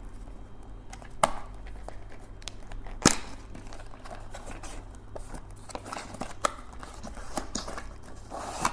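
A fidget cube's box and packaging being opened by hand: crinkling and tearing with a series of sharp clicks and taps, the loudest about three seconds in, and quicker small clicks and rustles in the second half.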